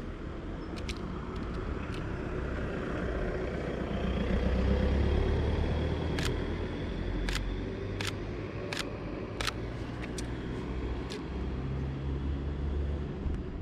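A motor vehicle passing close by on the street: a low engine hum that builds to its loudest about four to six seconds in, then eases off. Several sharp clicks are heard in the middle.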